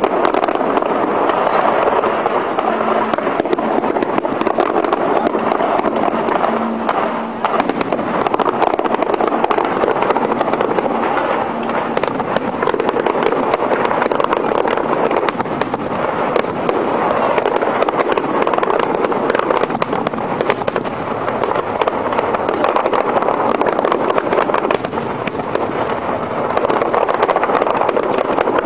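Fireworks display: many aerial shells bursting at once, a continuous dense crackling and popping with sharp cracks overlapping throughout.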